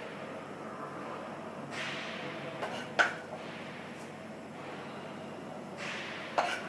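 A metal spoon scraping scrambled eggs out of a frying pan, with soft scrapes and a sharp clink about three seconds in and another near the end, over a steady faint hum.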